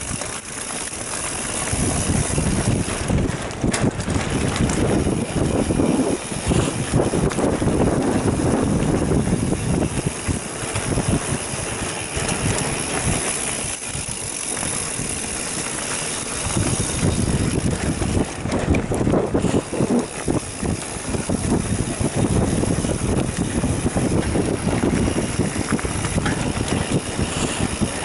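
Mountain bike ridden on a dirt singletrack: tyres rolling over dirt and the bike rattling over bumps, with wind noise on the microphone. The noise is continuous, easing a little for a few seconds around the middle.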